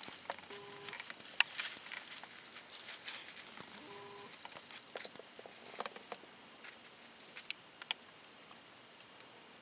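Scattered light rustling and small ticks, like movement in dry leaves, with two brief faint squeaky tones, one just under a second in and one about four seconds in.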